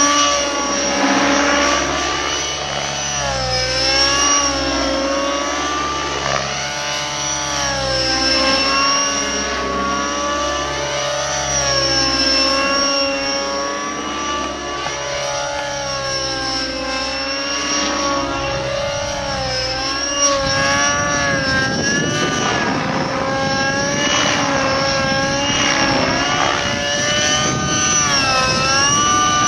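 Align T-Rex 600N nitro RC helicopter in flight: its two-stroke glow engine and rotors give a loud, pitched whine that rises and falls again and again as it manoeuvres. About two-thirds of the way through, a rough rushing noise joins in underneath.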